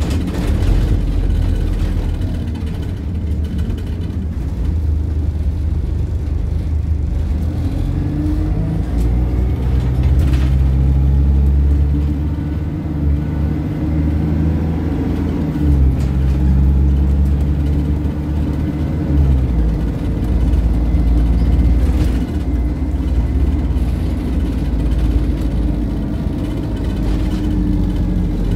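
Dennis Dart single-deck bus engine heard from inside the bus, pulling hard with its note rising, a gear change about two-thirds of the way in, then easing off, with a faint high whine while under power.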